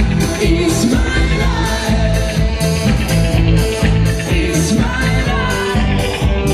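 Pop-rock song with a sung lead vocal over a steady drum beat and bass.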